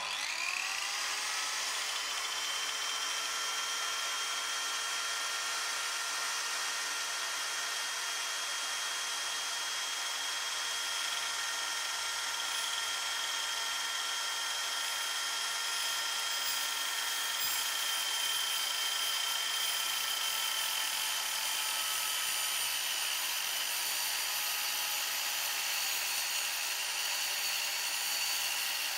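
Electric circular saw switched on, its motor whining up to speed within about a second, then running with a steady high-pitched whine.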